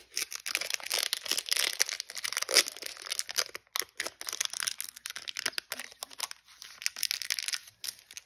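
Foil-lined Pokémon booster pack wrapper crinkling and tearing as it is worked open by hand, in uneven bursts of crackling with brief pauses.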